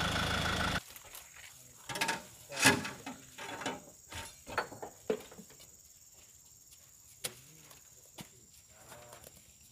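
Scattered thuds and knocks of oil palm fruit bunches being handled with long poles at a truck, several in quick succession over a few seconds, then fewer; background music cuts off just under a second in.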